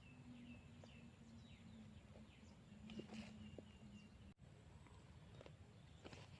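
Faint bird chirping: short high notes in quick runs, over a low steady hum that stops about four seconds in.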